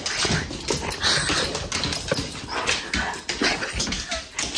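A pet dog excitedly greeting its returning owners: a run of quick noisy snuffles and breaths with faint short whines.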